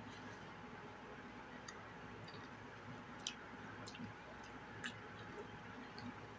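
Faint eating mouth sounds: a few sharp lip-smacking clicks about three to five seconds in, as she chews and licks her fingers, over a steady low room hum.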